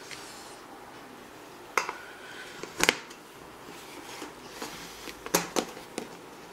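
Lid of a mini pasteurizer's control unit being handled and set onto its stainless-steel housing: scattered knocks and clatters of the lid against the metal, about four in all. The loudest comes just before three seconds in, and two more come close together a little past five seconds.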